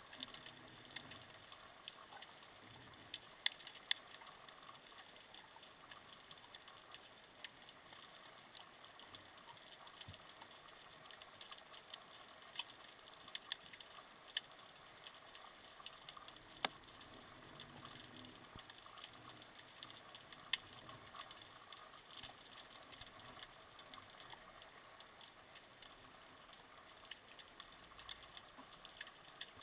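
Faint underwater ambience over a rocky reef: a soft steady hiss peppered with irregular sharp clicks and crackles, a few of them louder.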